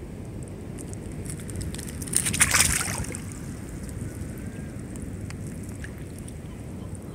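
Steady low rumble of water and handling noise on the microphone, with a brief louder rush of water with crackles a little over two seconds in.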